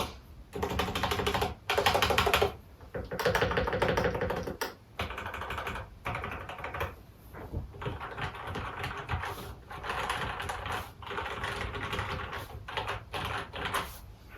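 Typing on a custom mechanical keyboard with lubed Gateron Red linear switches: quick runs of keystrokes broken by short pauses.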